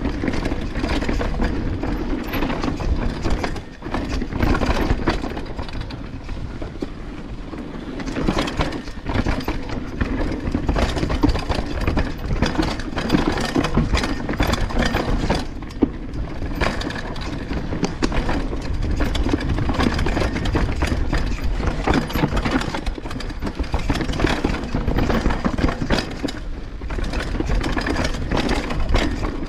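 Banshee Legend downhill mountain bike riding over rough trail: a constant rumble of tyres and wind on the mic, with an irregular clatter of the chain slapping and rattling, the chain rattle that is still not cured.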